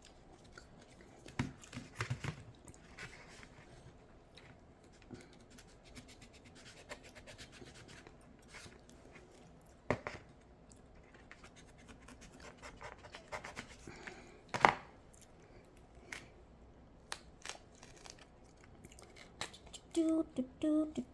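Hands prying open and peeling an ice cream bean (Inga edulis) pod: scattered scratching and rubbing on the fibrous shell, with sharp cracks, the loudest about ten seconds in and again near fifteen seconds.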